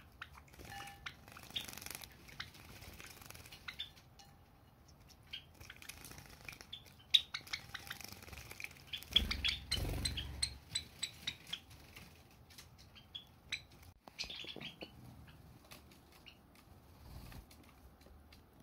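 Java sparrows bathing in shallow dishes of water: scattered short chirps and the patter of wings fluttering in the water, with a longer bout of splashing about nine to eleven seconds in.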